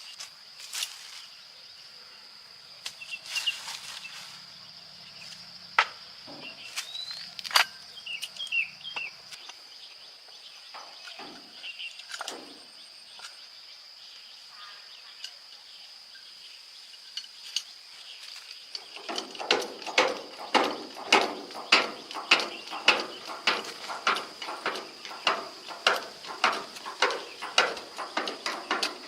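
Steady high insect drone with scattered clicks and taps of work. About two-thirds in, a run of regular strokes starts, about two and a half a second, and becomes the loudest sound.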